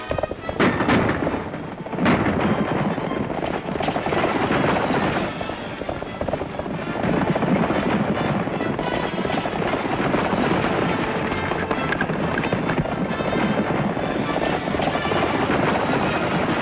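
Galloping horses' hooves and a horse-drawn wagon rattling at speed on a dirt road, a dense, continuous clatter with a few sharper knocks in the first two seconds.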